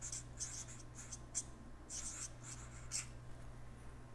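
Felt-tip marker writing on notepad paper: a quick run of short strokes as a word is written, stopping about three seconds in.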